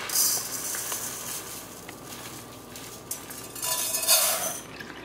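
Dry jasmine rice poured from a plastic measuring cup into an empty stainless steel saucepan: a hissing rush of grains on metal, heard briefly at the start and again more loudly for about a second near the four-second mark, with faint rustling of the rice bag and cup between.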